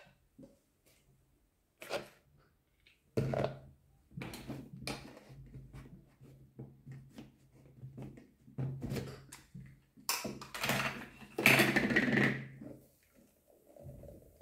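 Irregular knocks, taps and clatter of a plastic blender jug, its lid and metal kitchen utensils being handled, with the loudest, longest rattle about eleven seconds in. A low steady hum runs under much of it.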